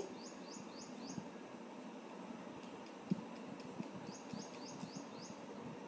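A wooden spatula stirs raw purslane greens and potato pieces in a stainless steel pan, giving faint scraping with a few soft knocks. Over it a bird chirps in two quick runs of short high chirps, one near the start and one after about four seconds.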